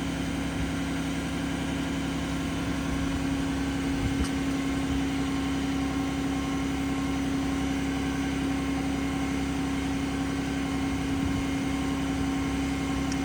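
Cummins 6.7-litre inline-six diesel of a 2019 Ram 5500 running steadily at high idle, held up to drive the crane's hydraulics at full speed.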